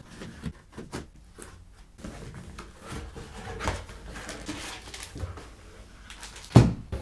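Cardboard box being opened by hand: the packing tape is slit and the flaps pulled back, with scattered rustling and scraping of cardboard and plastic-wrapped packs being handled and lifted out. A single sharp thump comes near the end.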